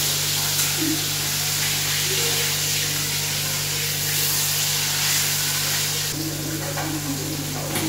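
Fish frying in hot oil in a kadai on a gas stove: a steady, hissing sizzle that eases a little about six seconds in.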